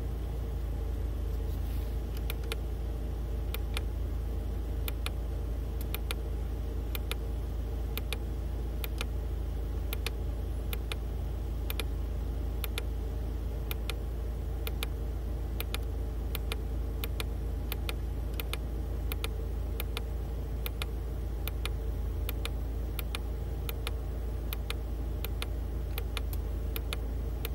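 Buttons on a Lancia Lybra's climate-control panel clicking, pressed over and over at an uneven pace to step through the unit's self-diagnosis readouts. A steady low hum inside the car runs underneath.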